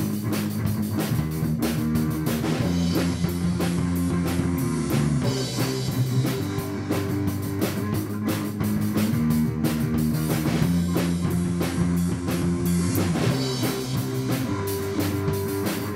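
Background rock music with guitar and a drum kit keeping a steady, dense beat.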